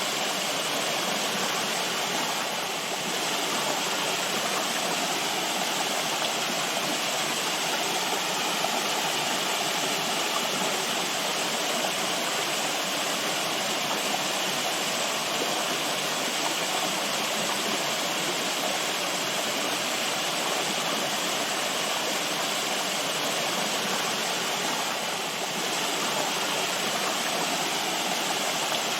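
Running water rushing steadily, with two slight dips in level.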